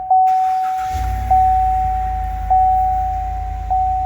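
Chevrolet Suburban 6.2 L V8 cranked and caught about a second in, then settling into a steady idle on freshly fitted spark plugs, with no shake from the earlier misfire. Over it, the car's warning chime dings four times, about once every second and a quarter, louder than the engine.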